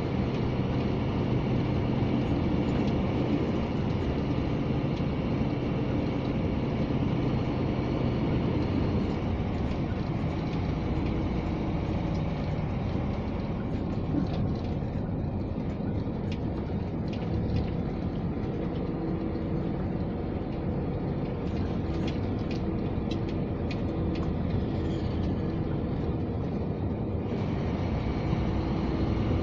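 Scania G460 truck's 13-litre six-cylinder diesel running steadily under way, heard from inside the cab as a low drone with road noise. A run of faint light clicks comes through in the middle.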